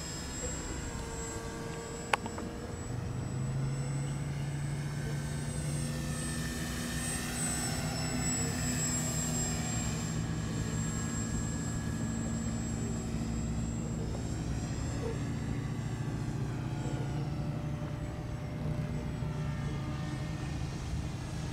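Electric motor and propeller of a Flyzone Switch RC floatplane in flight: a steady whine that gets louder a few seconds in and twice sweeps in pitch as the plane passes. A single sharp click about two seconds in.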